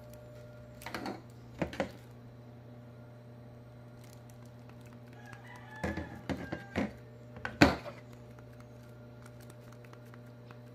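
Clear plastic wrapping crinkling and button clicks as a sealed remote control is handled and pressed, with a few sharper knocks, the loudest about three-quarters of the way through, over a steady low hum.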